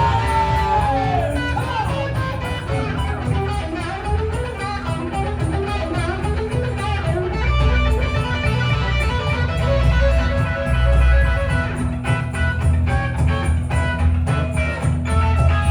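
Live band playing an instrumental break without vocals: a guitar lead with pitch bends over bass and rhythm guitar.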